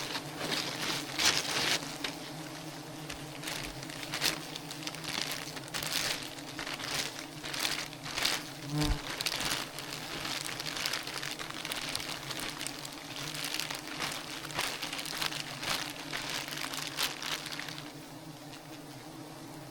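A swarm of wild honeybees buzzing steadily, with frequent crackling and rustling over the buzz that stops near the end.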